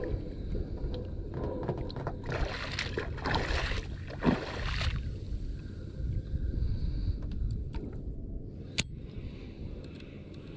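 Water and wind noise around a small outrigger fishing boat at sea, louder for a few seconds about two seconds in, with one sharp click later on.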